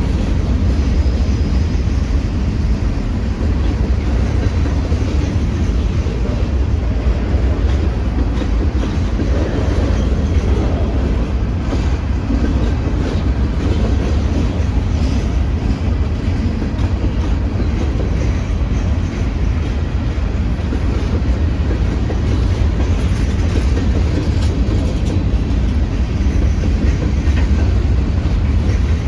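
A freight train rolling steadily past, its wheels running over the rails.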